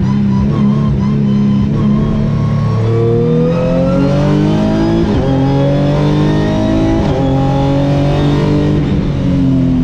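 Renault Mégane Trophy race car's 3.5-litre V6 engine heard on board, holding steady revs through a corner, then accelerating hard with rising pitch. It shifts up a gear about halfway through, again about two seconds later, and once more near the end.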